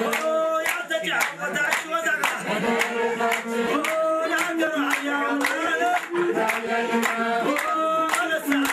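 A group of people singing together while clapping their hands to a steady beat.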